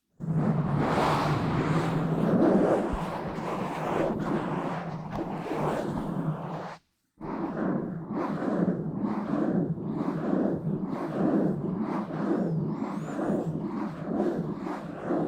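A microphone being rubbed and scratched directly, with no cover on it: dense, rough scraping and swishing close on the capsule. About seven seconds in it stops dead for a moment, then resumes as quick, repeated rubbing strokes.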